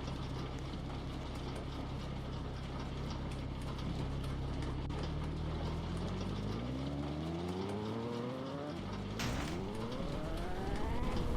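Car engine running steadily, then accelerating: its pitch rises from about six seconds in, breaks off about nine seconds in as it changes gear, and rises again.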